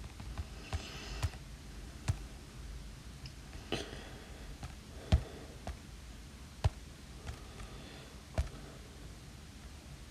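Stylus tip tapping on a tablet's glass screen: about nine sharp, irregular clicks, the loudest about halfway through. Twice, near the start and about four seconds in, a brief scratchy stroke of the tip dragging across the glass.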